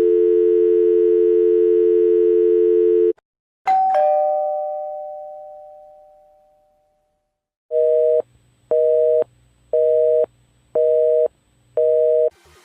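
Telephone dial tone, a steady two-note hum that cuts off about three seconds in, followed by a single electronic chime that fades away, then a telephone busy signal of five short two-tone beeps about a second apart.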